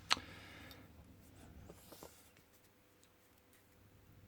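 A single sharp click just after the start, then a few faint light taps and scrapes as small padlock parts are handled.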